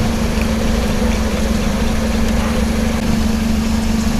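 Car engine running steadily at the exhaust pipe, a constant low hum, while a sound level meter measures its exhaust noise.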